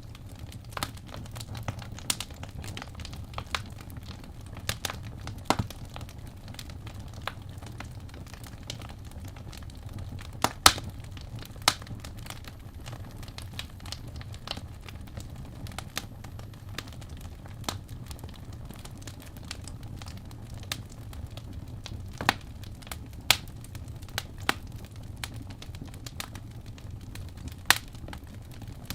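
Wood fire burning in a fireplace: irregular crackling with sharp pops, a few of them much louder, over a steady low rumble.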